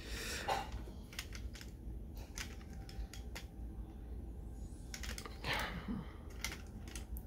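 Irregular small clicks and taps of hands handling a Jada Toys Lamborghini Veneno toy car, turning it over with its doors swung open.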